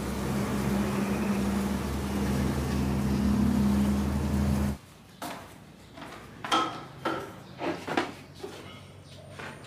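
A honey bee colony on its combs buzzing, a steady drone with a held low hum. It cuts off abruptly about five seconds in and is followed by a few light knocks and clatters.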